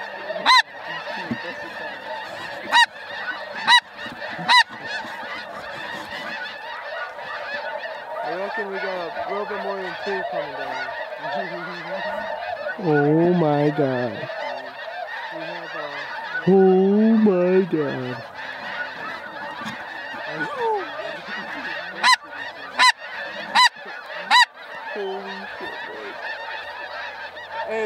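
A huge flock of snow geese calling overhead: a dense, unbroken din of many overlapping high honks and yelps. Twice a lower, wavering call stands out, in the middle. Several sharp, loud clicks cut in, a few near the start and a quick run of four later on.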